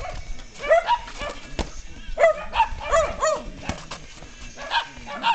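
Short, high animal calls that rise and fall, coming in quick clusters about two and three seconds in and again near the end, with a few sharp knocks in between.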